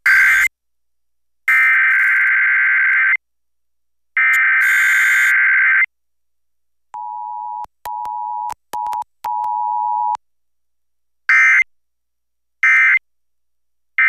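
Emergency Alert System signals broadcast over FM radio for a required weekly test. It starts with the warbling digital SAME header bursts, the long ones each about two seconds. About halfway, the two-tone attention signal sounds as a steady chord with a few brief dropouts. Near the end come short digital end-of-message bursts.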